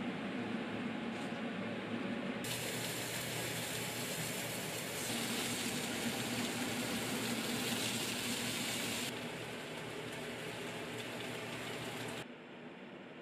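Slices of chashu pork sizzling in a frying pan, the hiss starting abruptly a couple of seconds in and fading back after about six seconds, over a steady low hum.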